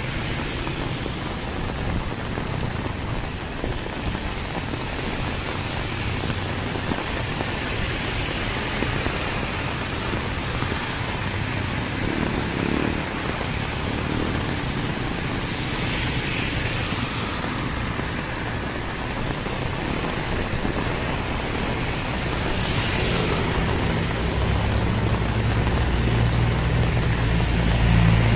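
Heavy rain falling steadily, with the swelling hiss of vehicles passing on the wet highway a couple of times. In the last few seconds a low engine hum grows louder.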